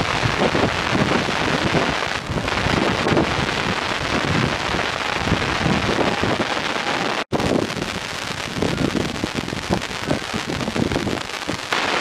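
Wind buffeting an outdoor microphone: a steady rushing hiss with gusty low rumbles that swell and fade. It cuts out for an instant about seven seconds in.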